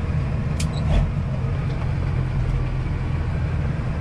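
Semi tractor's diesel engine running steadily while driving, heard inside the cab with road noise. There is a sharp click a little over half a second in and a low thump about a second in.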